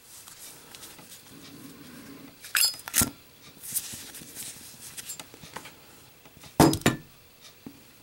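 Brass Zippo lighter: the lid clicks open with a short metallic ring and the flint wheel is struck, then a few seconds later the lit lighter is dropped and lands on a table with a clatter of quick knocks, the loudest sound here.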